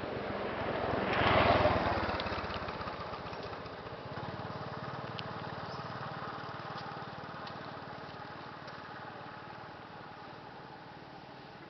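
A small engine running, swelling to its loudest about a second and a half in, then slowly fading.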